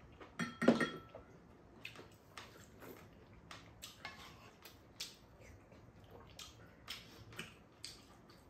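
Eating utensils clinking and tapping against ceramic bowls and a pan during a meal. There is one loud ringing clink just under a second in, then scattered light clicks every half second or so.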